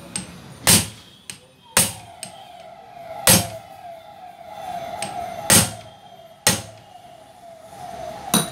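Sharp knocks at uneven intervals, about six loud ones with lighter clicks between, from a gas monoshock absorber held in a bench vise as its top is worked by hand. A wavering whine that rises and falls a few times a second runs underneath from about two seconds in.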